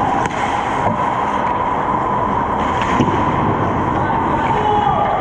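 Ice hockey play on the rink: skates carving and scraping the ice in a steady loud rush, with a few sharp clacks of sticks and puck.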